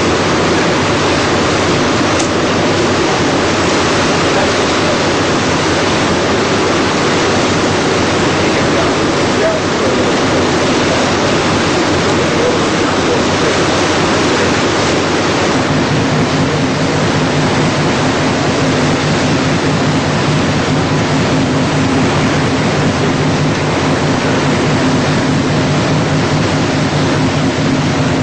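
Loud, steady rush of sea water past a moving motor vessel. About halfway through, the ship's engine drone joins it as a steady low hum.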